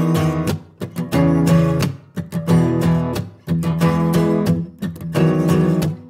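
Background music: an acoustic guitar strumming chords in a steady, repeating rhythm.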